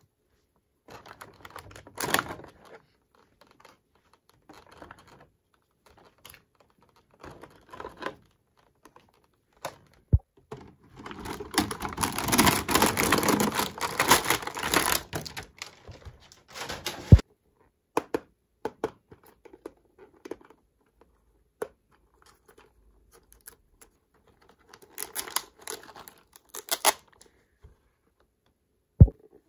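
Small plastic toy pieces clicking and tapping as they are handled, with several seconds of plastic packaging crinkling and tearing in the middle. A few sharper knocks come in between.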